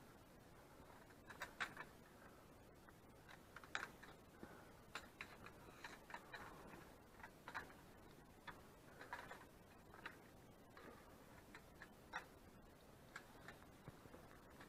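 Faint, irregular clicks and scuffs of a climber's boots and gear on rock, a few a second and unevenly spaced, over a quiet hiss.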